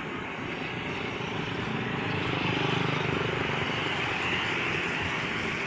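A motor vehicle's engine running as it passes, a steady drone that grows louder toward the middle and then eases off.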